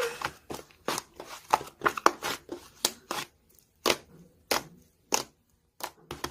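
A run of sharp, irregular clicks and taps, dense for the first three seconds and then sparser, about one every half second to a second.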